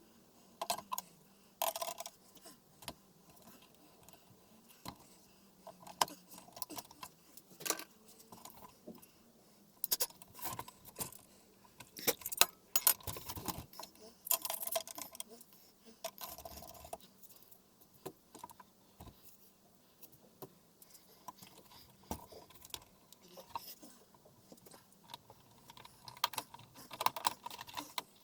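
Irregular clicks, clinks and small rattles of plastic and metal TV parts and screws being handled and set down as the set is taken apart, with the busiest clattering around the middle and near the end.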